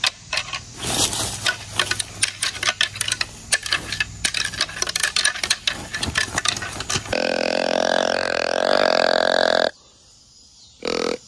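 Deer antlers clashed and ground together in antler rattling, a quick run of clacks for about seven seconds. Then a deer grunt call is blown in one long grunt of about two and a half seconds, with a short grunt near the end.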